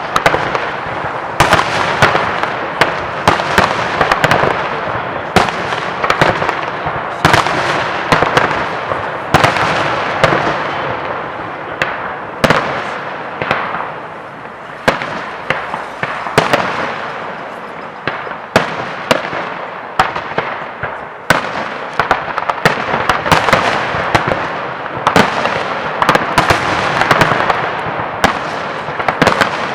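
Aerial fireworks display: shells bursting in rapid, irregular succession, several bangs a second at times, over continuous crackling.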